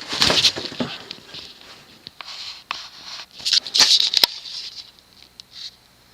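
Handling noise: uneven rustling and scraping with scattered sharp clicks, busiest near the start and again around three to four seconds in, ending in one hard click, then quiet.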